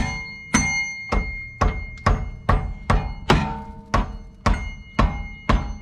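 Mallet striking a 5th-gen Camaro subframe bushing over and over, about two and a half blows a second, to drive out a stuck bushing. Each blow is a sharp knock with a short metallic ring.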